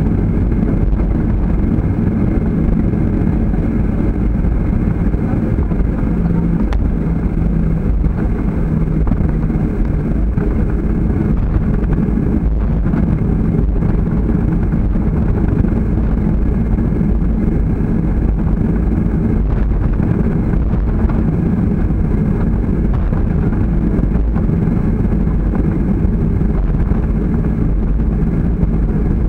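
Steady low rumble of a jet airliner's engines at taxi power, heard from inside the cabin by the window.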